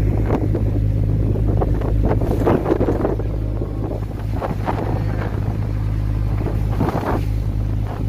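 A boat's engine running with a steady low hum, with wind gusting irregularly across the microphone.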